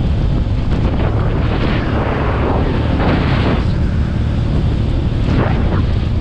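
Heavy wind noise buffeting the microphone at road speed, with the KTM 450 EXC-F's single-cylinder four-stroke engine running steadily underneath.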